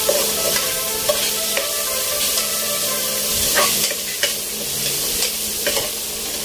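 Tomatoes, onion and ginger sizzling as they sauté in a cooking pot, stirred with a metal ladle that knocks and scrapes against the pot several times.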